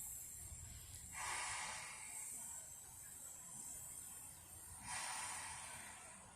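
Narrow-gauge steam locomotive letting off two hissing bursts of steam, each about a second long and nearly four seconds apart, over a steady high hiss.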